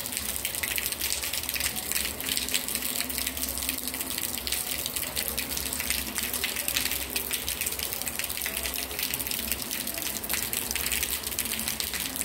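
Steady rain falling on a wet street, a constant hiss with a dense crackle of drops splashing on the pavement and puddles.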